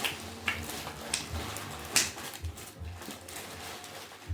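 Gift wrapping and packaging being handled: rustling with a few sharp crackles, the loudest about two seconds in.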